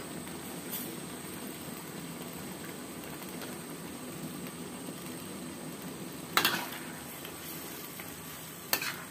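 Saucy chicken and vegetable stir-fry simmering in a wok, a steady low bubbling hiss, with a metal ladle clanking against the wok once about six seconds in and twice more near the end.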